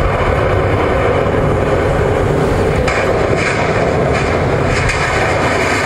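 Continuous dense thudding and knocking of many feet on a hollow wooden stage as a group of children dance and stamp.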